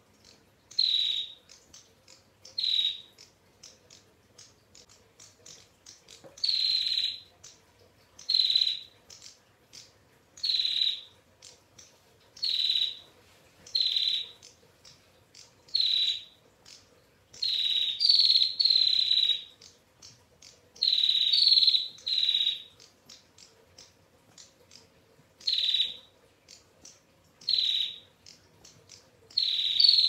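Female prenjak tamu (prinia) calling in its long rapid 'ngetir' trill. It gives about fifteen high, dry calls, each half a second to a second long, roughly every one and a half to two seconds, with faint quick ticks between them.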